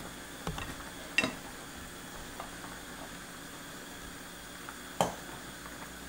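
A pot of doenjang stew simmering on a gas burner, a steady low hiss, as mushroom pieces are dropped into it by hand. A few sharp clicks and knocks break through it, the loudest about a second in and near the end.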